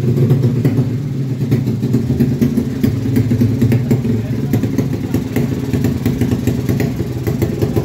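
Motorcycle engine idling steadily, with scattered light ticks over its running.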